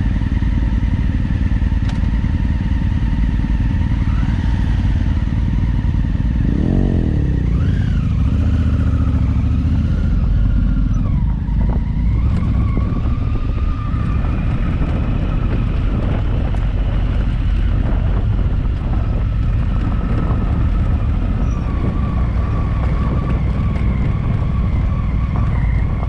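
Twin-cylinder adventure motorcycle engine running under way, heard from on the bike over a heavy low rumble. The engine's pitch dips and rises a few times between about six and twelve seconds in, as the revs change.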